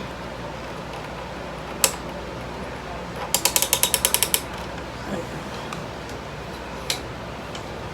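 A single sharp click, then a quick run of about a dozen ratcheting clicks lasting about a second, and another click later: plastic parts of a ring light kit being clicked and ratcheted together during assembly.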